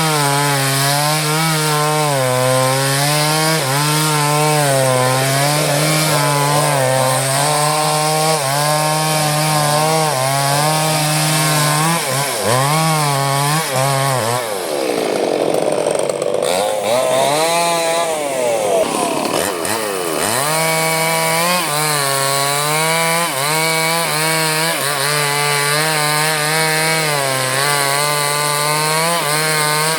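Chainsaw cutting through a red durian-wood log, the engine held under load with its pitch wavering as the chain bites. About halfway through, the engine pitch dips and swings down and up for a few seconds, then settles back to steady cutting.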